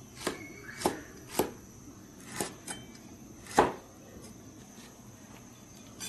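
Kitchen cleaver slicing flat green beans and striking a wooden chopping board: about six irregularly spaced chops over the first four seconds, the loudest about three and a half seconds in.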